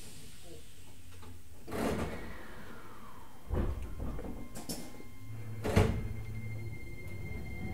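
Cabin sound of a Keisei 3000-series electric train setting off from a station: low running rumble with three sharp clunks from the car, a short falling tone, then a low hum and a faint high electric motor whine setting in near the end as the train starts moving.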